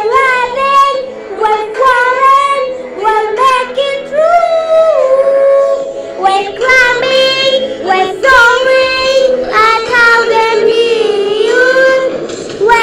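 A young girl singing a song continuously into a handheld karaoke microphone, with held, gliding notes.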